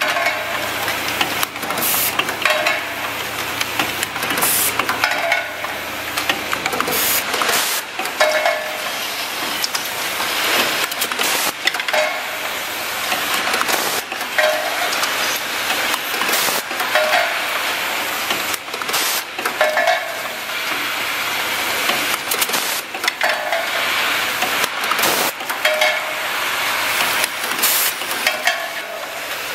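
Automated faucet assembly machine running: a steady hiss of compressed air, broken every second or two by sharp clicks and knocks of pneumatic cylinders and valves, with short bursts of exhaust air.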